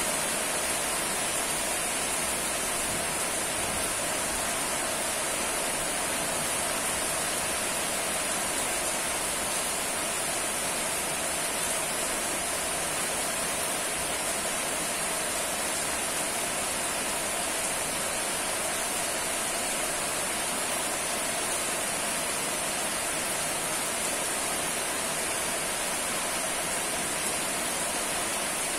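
Steady, heavy rain falling, an even unbroken hiss of water.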